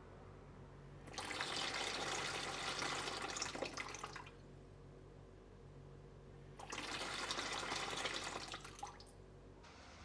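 Water gushing from a chrome wall-mounted bib tap into a plastic bowl, in two runs of about three and two seconds as the tap is opened and shut twice.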